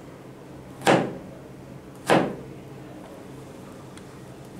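Kitchen knife chopping down through a carrot onto a plastic cutting board while dicing: two sharp chops a little over a second apart, each with a short ringing tail, over a faint steady hum.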